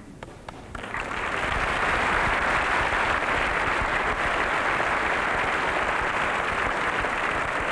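Studio audience applauding: a few scattered claps at first, then full applause from about a second in, holding steady.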